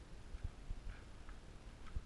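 Soft, irregular footsteps on a wooden parquet floor: a few low thuds over quiet room tone.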